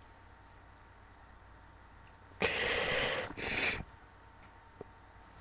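A woman sneezing: one loud sneeze about two and a half seconds in, lasting about a second, followed at once by a second, shorter burst.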